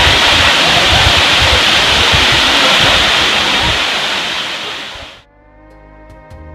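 Loud, steady rush of a waterfall pouring into a pool, fading out about five seconds in. Soft instrumental music with held notes begins as it fades.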